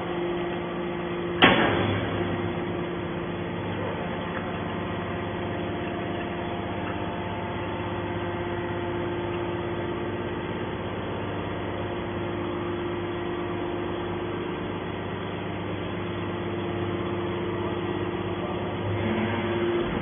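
Hydraulic scrap-metal baler running with a steady hum while its ram pushes a compressed bale out of the chamber. A single sharp bang about a second and a half in.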